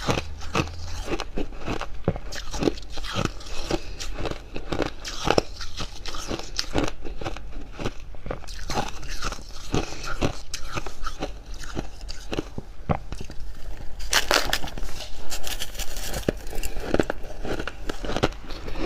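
Close-miked biting and chewing of crunchy freezer frost: a fast, irregular run of dry crunches. A louder, denser stretch of crunching starts about fourteen seconds in.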